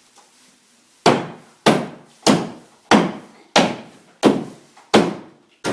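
Hammer blows against a wall being knocked down: eight sharp, evenly paced strikes, a little under two a second, beginning about a second in.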